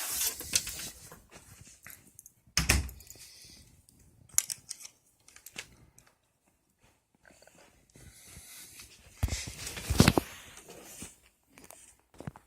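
Rustling with a scattering of knocks and thumps, the sound of objects being handled and moved. The loudest thumps come about two and a half seconds in and around ten seconds in, with a quiet stretch between.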